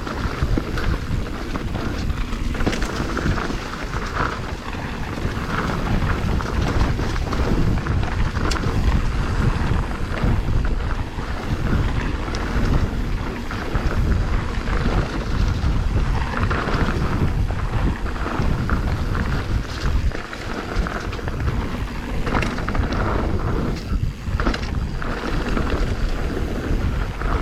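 Mountain bike descending rough singletrack at speed: heavy wind rumble on the microphone, with tyre noise on the dirt and scattered knocks and rattles as the bike goes over rocks and roots.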